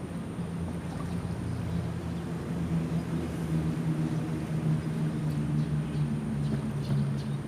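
An engine droning steadily at a low pitch, slowly growing louder.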